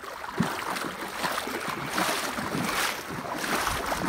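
Water splashing and sloshing in quick, irregular strokes, close up.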